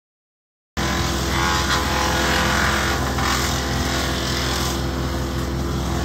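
Kubota compact tractor's diesel engine running steadily at working speed, driving a three-point-hitch wood chipper as branches are fed into it, with a steady hiss over the engine. The sound cuts in abruptly about a second in.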